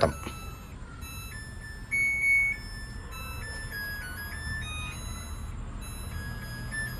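Samsung top-load washing machine playing its electronic end-of-cycle melody, a tune of pure beeping notes stepping up and down in pitch, with one louder held note about two seconds in. It signals that the wash programme has finished.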